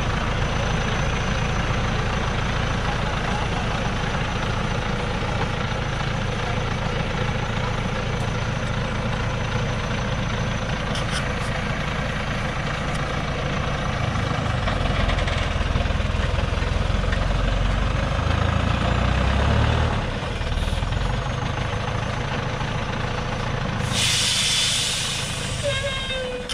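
Loaded Hoa Mai logging truck's diesel engine running hard as it strains to climb out of deep mud, with its rear wheels digging in. The engine grows louder and deeper about halfway through, drops briefly, then a sharp air-brake hiss comes near the end.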